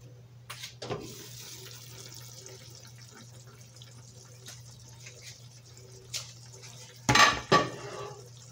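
A glass pot lid clinks as it is lifted off a pot of chicken drumsticks. The drumsticks then simmer, bubbling and sizzling with a steady hiss. Near the end, two loud clanks of the lid being set down on metal are the loudest sounds.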